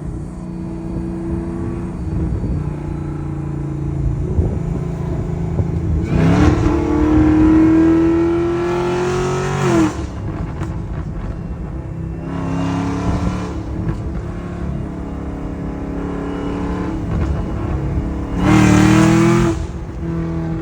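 Chevrolet Camaro ZL1's supercharged LT4 V8, its blower fitted with a Griffin Motorsports lid, doing hard acceleration pulls. The engine pitch climbs steadily through a long pull about six seconds in that cuts off sharply, then a shorter pull, and then a brief, loud burst of throttle near the end.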